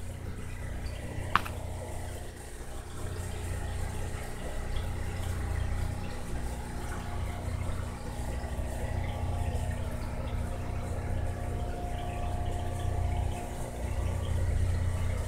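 Aquarium filter pump running: a steady low hum with water noise, and a single sharp click about a second and a half in.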